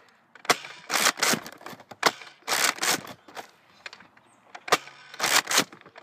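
Nerf Sling Fire lever-action dart blaster being cocked and fired several times: clusters of sharp clacks and puffs, in three groups.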